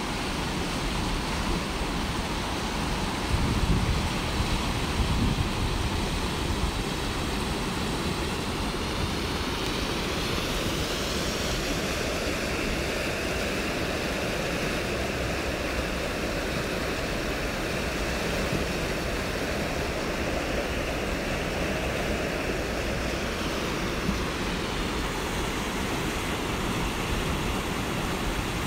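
River rapids rushing steadily. Wind gusts on the microphone a few seconds in.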